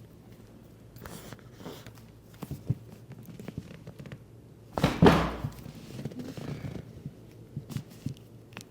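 Chiropractic foot adjustment: soft handling sounds and a few small clicks, then one loud thunk about five seconds in that tails off over about half a second.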